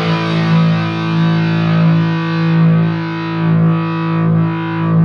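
ESP LTD EC-256 electric guitar played through distortion: one chord, struck just before, rings out steadily and sustains with only a slight waver in level, showing the guitar's good sustain.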